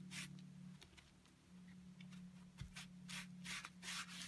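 A tissue rubbing glitter paste over the raised pattern of an embossed card: soft, dry swishing strokes, sparse at first and coming about three to four a second near the end, over a faint steady low hum.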